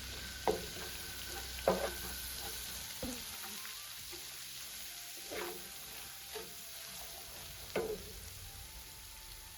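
Food frying with a steady faint sizzle in a pan while it is stirred, the spoon knocking against the pan about six times, some knocks ringing briefly.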